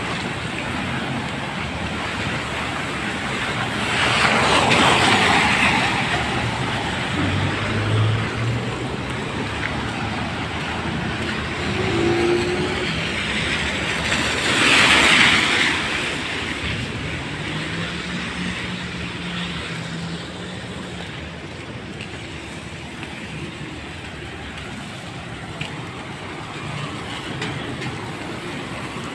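Street traffic on a wet road: a steady hiss, with cars swishing past on the wet pavement, the tyre noise swelling about four seconds in and again around fifteen seconds, and brief low engine hums in between.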